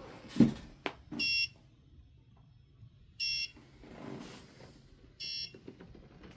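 Electronic beeper of a homemade ESP8266 freezer-door alarm beeping three times, short beeps about two seconds apart: the door-open timer has expired. A sharp knock, the loudest sound, and a click come just before the first beep.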